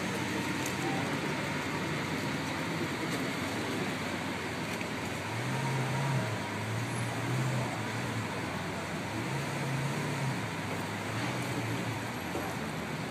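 Lamborghini Aventador's V12 idling: a low steady hum that comes and goes from about five seconds in, over a constant wash of street traffic noise.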